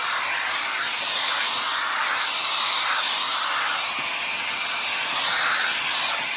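Hot-air dryer brush running on a steady setting while it is drawn through hair, giving a constant rushing hiss of blown air.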